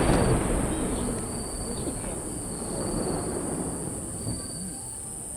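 Rolling, echoing tail of a large aerial firework shell's burst, fading away over the first two seconds. Under it and after it, insects chirr steadily: a continuous high hiss and a higher trill that stops and starts.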